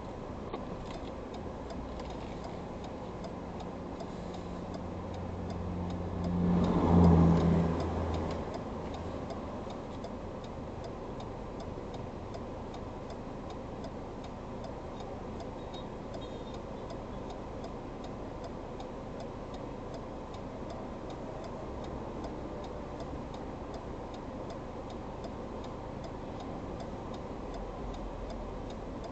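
Road and engine noise inside a moving car, with a steady light ticking running through it. About seven seconds in, a louder engine-and-tyre noise swells up and fades away.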